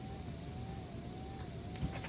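Steady outdoor background noise: a low rumble and a high steady hiss, with a faint tone wavering up and down about twice a second. A single short knock comes near the end.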